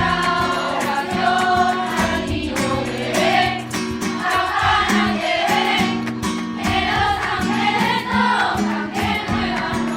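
A choir singing a Spanish Christmas carol (villancico) over instrumental backing with a steady beat.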